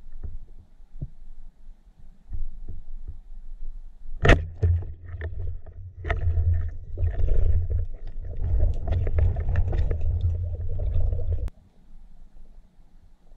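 Muffled underwater sound heard through a camera housing: a single sharp knock about four seconds in, then a loud low rumble with crackling bubbles from about six seconds in that cuts off suddenly near the end.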